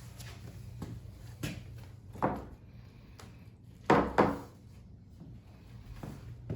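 Several sudden knocks and thuds, the loudest a close pair about four seconds in, over a low steady hum.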